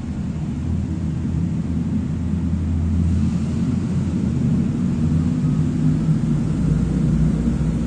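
Ford Fiesta Mk7 engine running as the car drives slowly through an underground car park. It grows a little louder over the first few seconds as the car comes closer.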